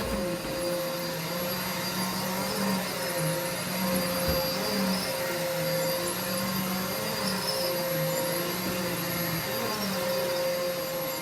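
Vacuum cleaner running steadily, its motor hum wavering slightly up and down in pitch as it is pushed over carpet.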